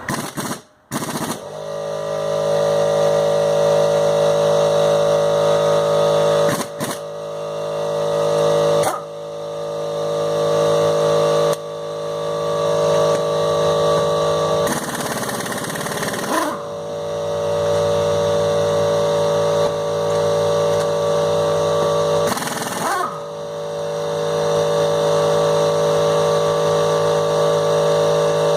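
Air compressor motor running with a steady hum. It drops briefly a few times and builds back up, with two short bursts of hissing noise, one at about fifteen seconds and a shorter one near twenty-three seconds.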